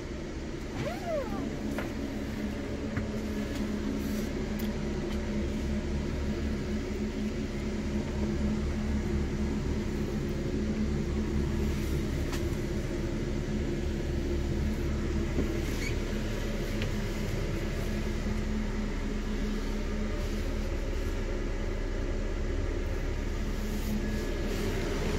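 Mercedes-Benz Sprinter 519 CDI minibus's diesel engine idling, a steady low hum heard inside the passenger cabin. A few short squeaks about a second in.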